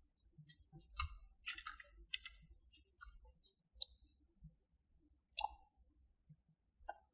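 Computer keyboard keys and mouse buttons clicking: several separate faint clicks, spaced irregularly.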